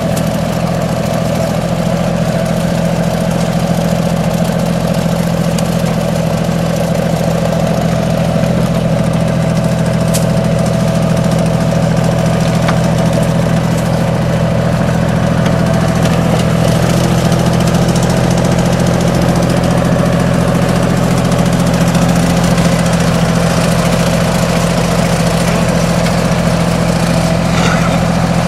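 TYM T233 compact tractor's diesel engine running steadily at an even speed while it powers the backhoe's hydraulics.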